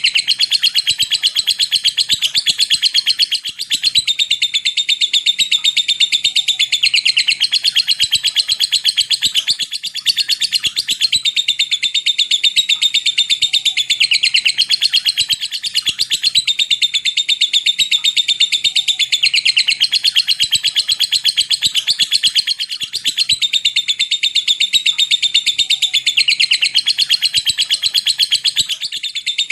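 Lovebird giving its long, rapid chattering trill ('ngekek'), made of very fast ticking notes ('ngetik'). It runs almost without a break, with short pauses every few seconds. This is the long-duration ngekek trill of a fighter lovebird that keepers play to train their own birds.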